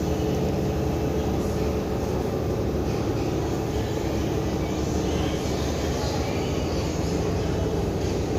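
Steady low rumbling background noise of a large store interior, with no distinct events and an even level throughout.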